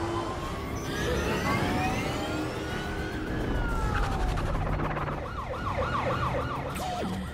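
Several police car sirens wailing at once over a low vehicle rumble, their pitches rising and falling across one another. About two-thirds of the way through, one siren switches to a fast up-and-down yelp for a couple of seconds.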